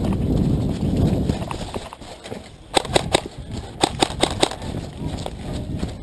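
Rumbling handling and movement noise on a camera carried by a moving airsoft player. Then, from about the middle, quick groups of sharp clicks and snaps, two to four close together at a time.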